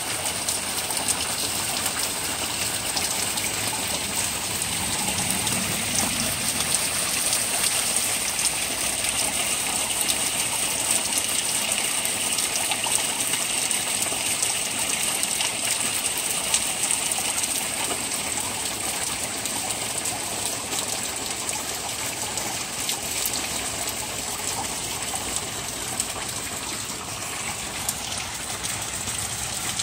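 Steady rain falling: an even hiss dotted with many fine drop ticks.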